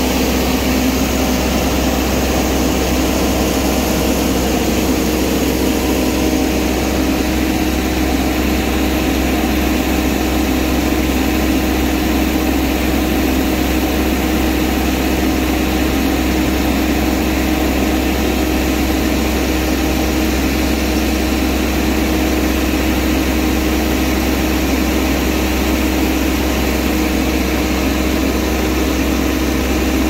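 Vardhman track combine harvester's engine and machinery running steadily while its unloading auger pours threshed paddy into a trailer: a constant loud drone with a steady hum.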